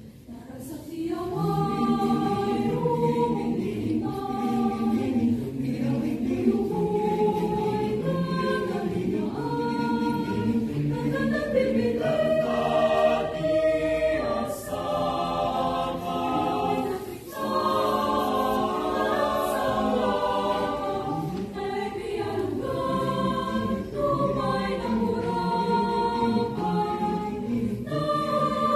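Mixed SATB choir singing in four-part harmony, starting about a second in.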